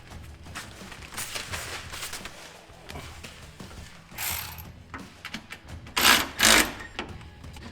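Hand socket ratchet clicking as nuts are run onto carriage bolts, with a couple of louder short rattling bursts about six seconds in.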